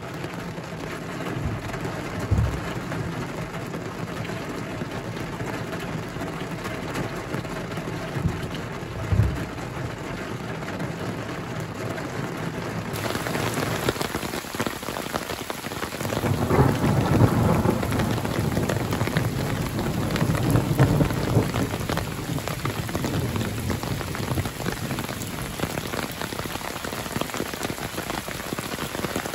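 Heavy thunderstorm rain, at first dull and muffled with two short low thumps. About halfway through it turns bright and hissing, rain falling onto open lake water. A long roll of thunder swells a few seconds later and rumbles on for several seconds before fading.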